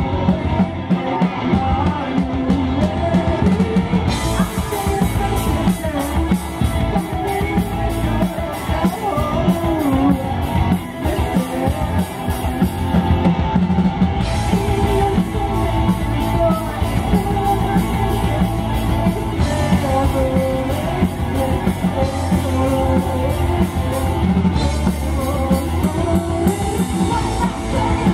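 Live rock band playing: a singer over electric guitars, bass guitar and a drum kit keeping a steady beat.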